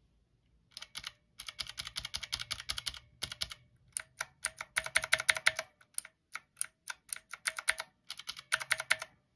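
Typing on a Redragon Kumara K552 mechanical keyboard with stock Redragon blue clicky switches: a fast run of sharp key clicks in bursts with brief pauses. The reviewer calls the stock switches' sound atrocious and attributes a metallic reverb to the board's aluminium plate.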